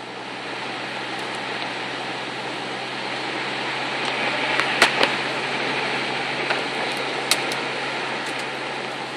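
Inside a moving Mazdaspeed6: the steady hiss of the heater blower and road noise over a low engine hum, with a few sharp clicks about five and seven seconds in.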